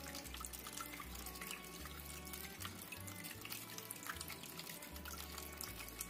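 Small tiered tabletop fountain running: thin streams of water trickling and splashing from cup to cup into the basin. Soft background music with low bass notes plays under it.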